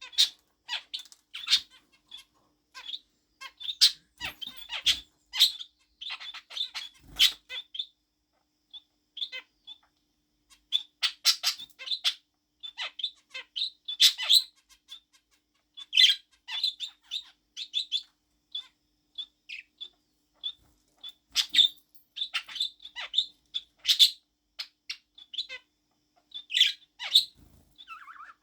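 Pet budgerigar mimicking finch calls: many short honks and beeps in quick runs, with a couple of brief pauses.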